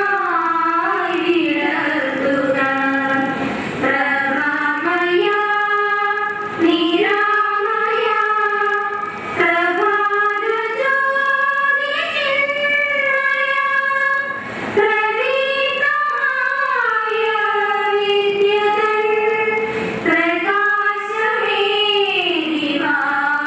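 A few young women singing an unaccompanied prayer song together into a microphone, with long held notes that glide up and down in pitch.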